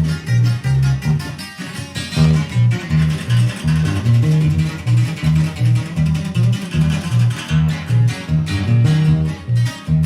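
Live guitar-and-bass instrumental break between verses of a norteño corrido: a guitar picks the melody over a bass line that alternates between two low notes on a steady beat.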